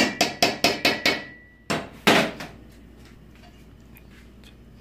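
A metal spoon knocked about six times in quick succession against a stainless steel cooking pot, which rings on briefly, then two more knocks about two seconds in.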